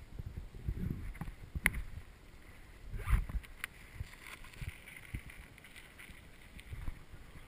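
Wind rumbling on the microphone, with a few scattered knocks and creaks; the loudest is a thump about three seconds in.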